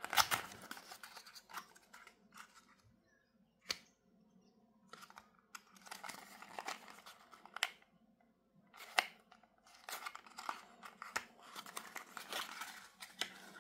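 Small white paperboard box handled and pried open by fingers: irregular rustling and scraping of thin cardboard flaps, broken by a few sharp clicks.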